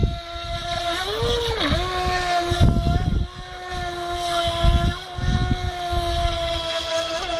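Radio-controlled speedboat's motor running at a steady high pitch as the boat circles on the water. About a second in the pitch briefly rises, then falls back. Wind buffets the microphone in gusts.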